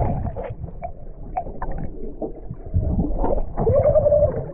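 Muffled rumble of river water heard through a GoPro's microphone, with short scattered knocks, and a louder muffled stretch a few seconds in.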